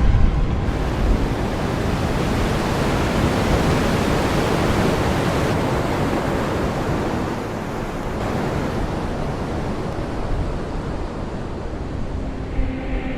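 Steady rushing wind noise, loud and even, with no distinct events; likely strong storm wind blowing across the microphone.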